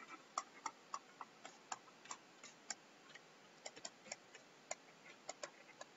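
Faint, irregular clicks of a stylus tip tapping on a tablet while words are handwritten, about two or three taps a second.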